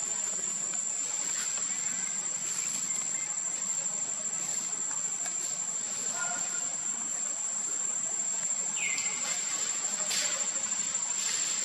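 Insects droning in one steady, high-pitched tone, with a few faint clicks and a short falling chirp about nine seconds in.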